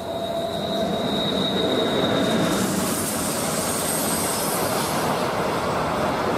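BLS Re 465 and Re 425 electric locomotives hauling an intermodal container train past, the rolling noise swelling as the locomotives and wagons go by. A thin high squeal stops about two and a half seconds in, and a dense rush of wheel and rail noise takes over as the wagons pass.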